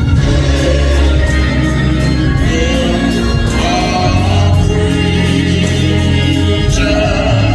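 Live gospel church music: sustained bass and keyboard chords with singing over a steady drum beat of about three strokes a second.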